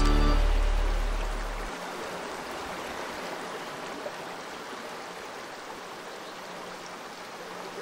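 Music fading out over the first second or two, then a steady rush of flowing river water.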